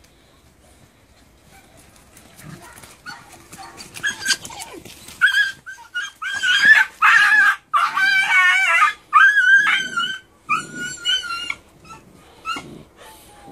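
Sharr Mountain dog (Šarplaninac) puppies play-fighting, giving a long string of high-pitched yelps and squeals that starts a few seconds in, is loudest in the middle and tails off into a few short yelps near the end.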